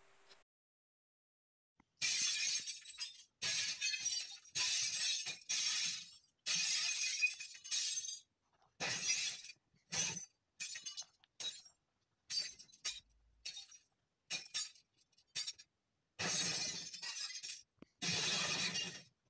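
Pen scratching across a notebook page as letters are drawn: a series of separate strokes, each up to about a second and a half long, with short pauses between them.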